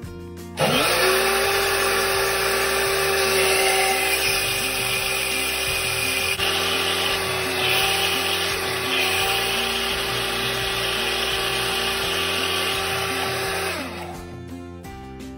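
Moulinex countertop blender switched on about half a second in: its motor spins up to a steady whine as it blends a thin crêpe batter of semolina, flour and milk. It is switched off near the end and winds down.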